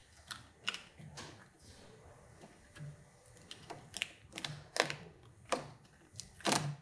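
Irregular sharp clicks and soft knocks of pliers and hands working at a motorcycle handlebar grip, with a louder cluster of clicks near the end.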